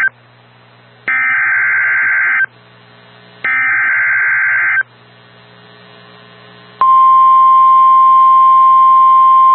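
NOAA Weather Radio alert signal: the end of one digital SAME header burst, then two more buzzy data bursts, each just over a second long with about a second's pause between. About seven seconds in, the steady single-pitch 1050 Hz warning alarm tone starts, louder, and holds. It announces a newly issued severe thunderstorm warning.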